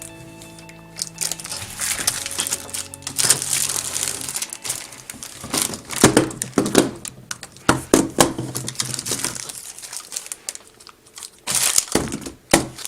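Plastic packaging crinkling and rustling in irregular handling bursts as a set of magnet tiles is unwrapped. Steady music tones fade out during the first few seconds.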